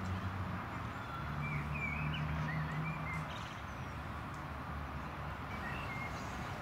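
Open-air ambience: a steady low hum of distant traffic, with a few short bird chirps about a second and a half in and again near the end.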